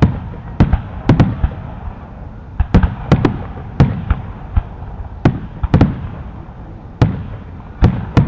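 Aerial fireworks bursting: a rapid, irregular string of sharp bangs, often two or three close together, each trailing off in a short low rumble.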